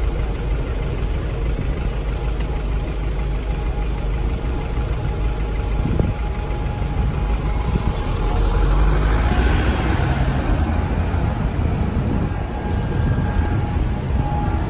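Street traffic with red double-decker buses: a steady low engine rumble, swelling as a bus and cars pass close by about eight to eleven seconds in. The loudest passing is a hybrid double-decker bus.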